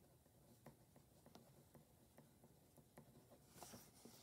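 Faint scratching of a pen writing on paper: a scatter of small ticks and short strokes, with a slightly longer scratch near the end.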